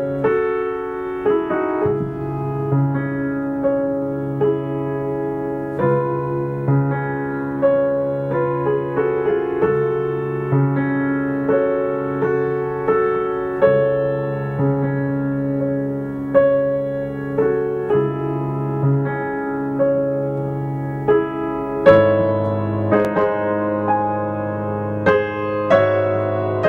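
Background piano music, slow with sustained notes; deeper bass notes come in about 22 seconds in.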